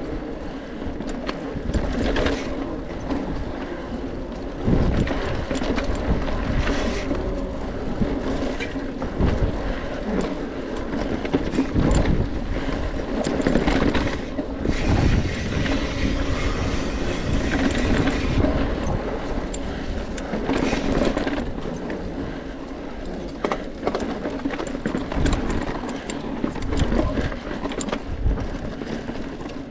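Mountain bike riding over a rough dirt trail: a continuous rumble of tyres and frame with rattling and frequent small knocks.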